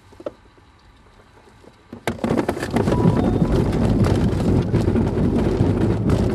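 A DG-800S sailplane's ground roll at the start of a cable launch. After two quiet seconds a sudden jolt, then a loud, steady rumble with many small knocks as the glider's wheel runs fast over the grass and air rushes past the fuselage.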